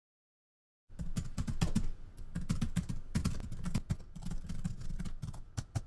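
Keyboard typing: a quick, irregular run of key clicks starting about a second in.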